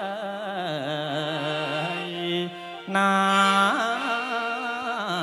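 Khaen, the bamboo free-reed mouth organ, playing a mor lam melody with quick trills over a steady drone. It drops away briefly about two and a half seconds in and comes back louder.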